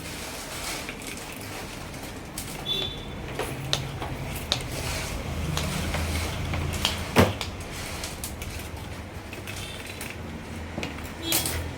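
Steel differential parts and tools being handled at a workbench: scattered metallic clinks and light knocks, a couple of short ringing clinks, and one sharp metal knock about seven seconds in, over a low steady hum.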